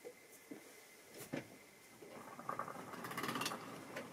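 Tri-ang model train running on the track: a few light clicks, then the rumble of its wheels and motor growing louder from about two seconds in as it approaches.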